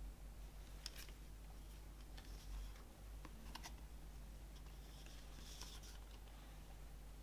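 CD packaging being handled up close: a few faint sharp clicks, then a soft rustle near the end.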